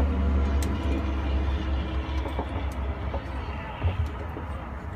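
A steady low rumble, loudest in the first half, with a few light clicks and knocks as fitting parts are handled.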